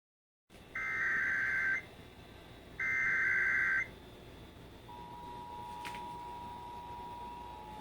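Emergency Alert System tones: two one-second bursts of the SAME digital header data, then, about five seconds in, the steady two-tone attention signal (853 and 960 Hz) that opens a Required Monthly Test.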